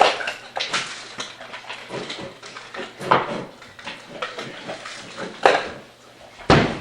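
Irregular clattering and knocks, with stronger strikes right at the start, about three seconds in and twice near the end, as dogs move about.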